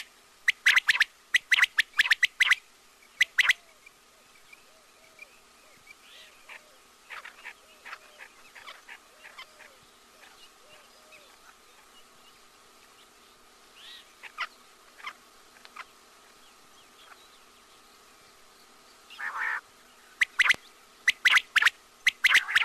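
Quail calling: groups of short, sharp calls in quick succession during the first three seconds and again over the last two, with a stretch of fainter, scattered calls between. A faint steady hum runs underneath.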